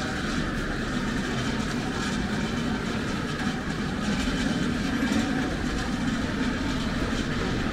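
Steady city street noise: a continuous low engine rumble from traffic, with no clear single event standing out.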